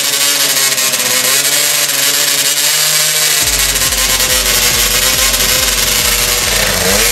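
Enduro motorcycle engine running and revving while the bike stands still, being warmed up after washing, with smoke coming off it. Background music with a steady beat comes in about halfway through.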